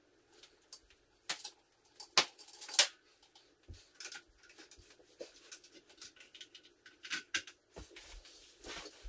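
Scattered clicks and knocks of hands working an electronic drum kit's stand and a desk chair, the loudest cluster from a little over a second to about three seconds in, with more near the end.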